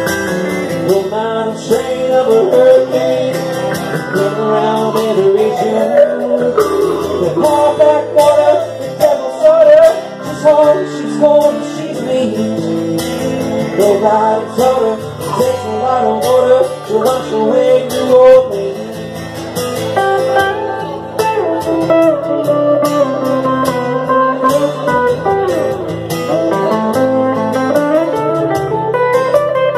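Instrumental break in a live blues-country song: an electric guitar plays a lead line with bent notes over a steady, lower accompaniment.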